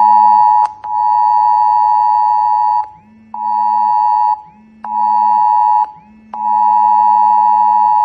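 Smartphone emergency alert tone sounding a test alert from India's National Disaster Management Authority. It is a loud, steady high beep in a pattern of long and short blasts: about two seconds, two one-second blasts, then two seconds again, with short breaks between.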